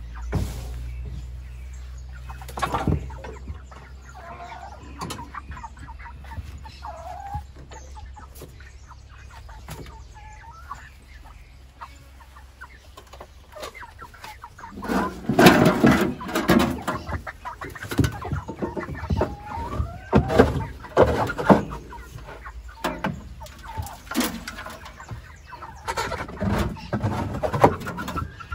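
Chickens clucking in the pen, with a run of loud scrapes and knocks from about halfway through as the enclosure is cleaned out.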